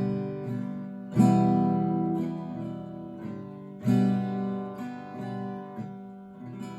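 Acoustic guitar playing a song's instrumental intro: strummed chords left ringing, with heavy strums about a second in and again near four seconds, and lighter strokes between them.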